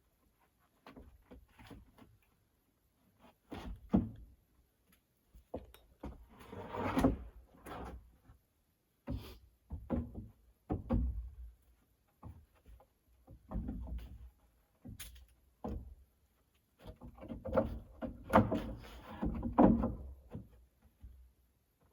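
Irregular wooden knocks, bumps and scrapes of hand construction work, with a few longer scraping stretches about seven seconds in and again near the end.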